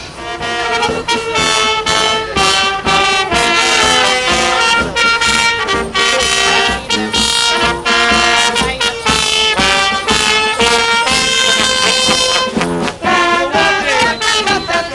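Carnival brass band of trumpets and a sousaphone playing a tune live, loud and close, one note quickly following another.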